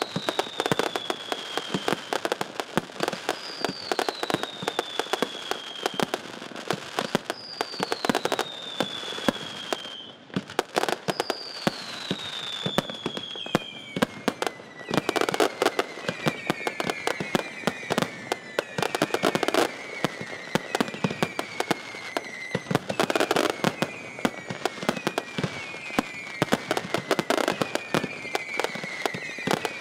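Fireworks display: a dense, continuous barrage of bangs and crackling from bursting aerial shells. Whistling fireworks fall in pitch over it, first four long whistles about four seconds apart, then from about halfway many shorter, overlapping whistles.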